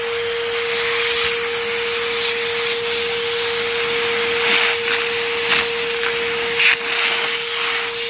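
Ridgid 18V cordless 9-gallon wet/dry shop vacuum running steadily with a constant whine, sucking sawdust off a workbench through a crevice tool. A few short rattles come in the second half.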